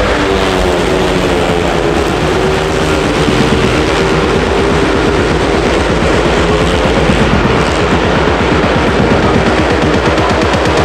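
Speedway bikes racing: several 500cc single-cylinder methanol engines running hard together, their rapid firing blurring into one loud, steady rasp whose pitch rises and falls as the riders work the throttles.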